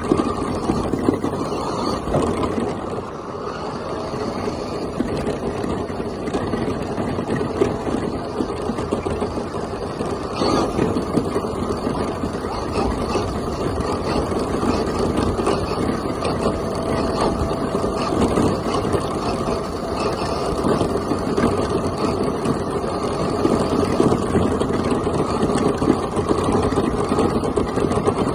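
Traxxas Stampede RC monster truck driving, heard from a camera mounted on its body: a steady, rough rush of drivetrain and tyre noise as it rolls over gravel and pavement.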